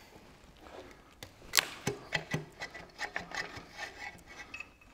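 Water manifold being worked up off its studs on a McCormick Deering engine: a run of irregular metal clinks, knocks and scraping, starting about a second in.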